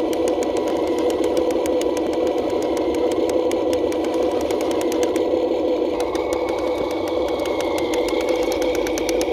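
RC CROSS KrAZ 260 six-wheel-drive scale truck running in shallow muddy water: a steady motor-and-gear whine with a rapid, even ticking, and a higher whine coming in about six seconds in.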